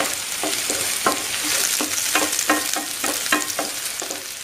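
Onions and tomatoes sizzling in hot oil in a non-stick frying pan while a spatula stirs them, its strokes scraping and knocking against the pan about three times a second. The sizzle and stirring fade out near the end.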